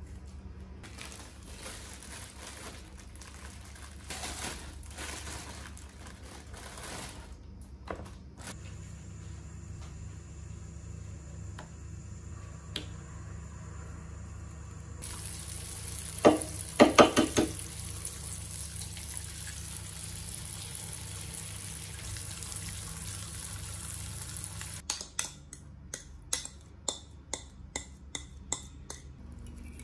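Kitchen cooking sounds: an avocado being cut and handled on a wooden board, then chicken sausage slices sizzling in oil in a frying pan, a steady hiss that starts suddenly, with a few loud sharp noises a second or two after it starts. Near the end the sizzle stops and a run of light clicks follows.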